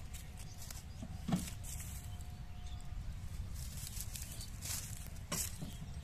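Power tiller's single-cylinder diesel engine running under load, pulling a loaded trolley: a steady low rumble, with a few short knocks.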